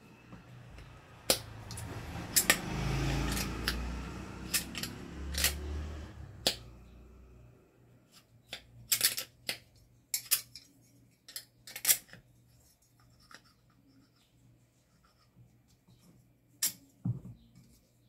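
Small metal fan-motor parts, the bearing housing and shaft, handled and worked by hand. A stretch of rubbing and scraping comes first, then a series of sharp metallic clicks and taps.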